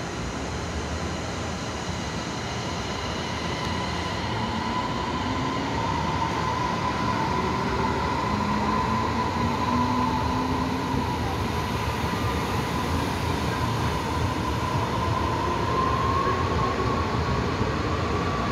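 Electric multiple-unit commuter train running past along the platform: a steady rumble of steel wheels on the rails that grows louder as the cars go by. A thin high whine sounds throughout, and fainter lower tones climb slowly in pitch.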